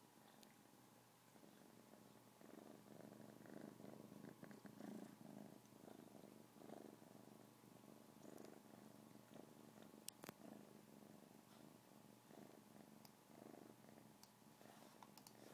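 Kitten purring faintly, with a rhythmic rise and fall. A single sharp click about ten seconds in.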